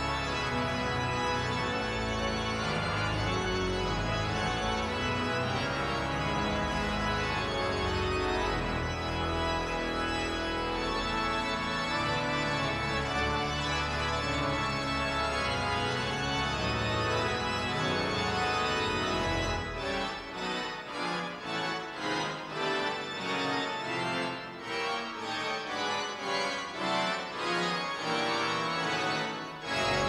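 Large church pipe organ playing full sustained chords over a deep pedal bass. About two-thirds of the way through the pedal bass drops out and the playing turns to short, separated chords, with the full sound returning near the end.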